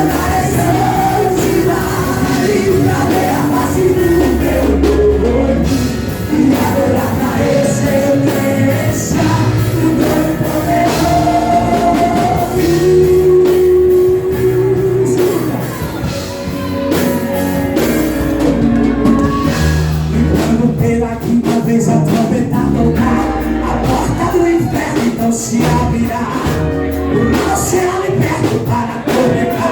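Live worship band playing rock-style music with a steady beat and bass, while a singer holds long melodic notes over it.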